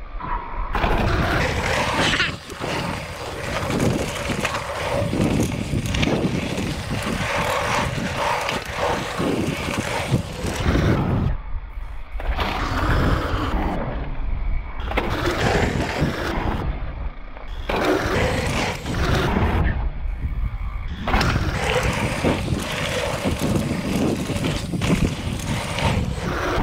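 Riding noise from a full-suspension mountain bike descending a dry dirt trail: knobby tyres rolling and crunching over the ground, the bike rattling, and wind buffeting the microphone. The noise is continuous and uneven, surging and easing every few seconds.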